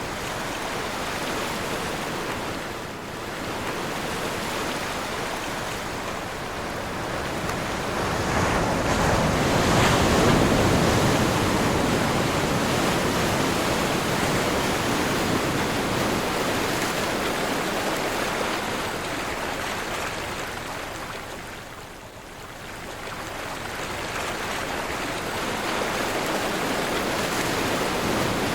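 Ocean surf on a windy day: waves breaking and washing in, with wind blowing over the microphone. The surf swells to its loudest about ten seconds in and ebbs briefly a little after twenty seconds.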